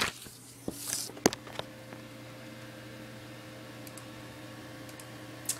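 A few handling clicks and a brief rustle as the recording device is moved, then a faint steady low hum with several level tones.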